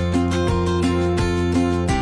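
Background music with plucked and strummed acoustic guitar at a steady pace.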